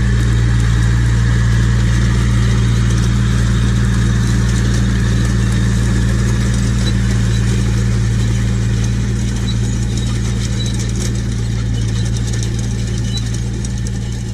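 Case Maxxum 110 tractor's diesel engine running steadily as it pulls a John Deere 1590 seed drill through the field, slowly growing quieter over the second half as it moves away.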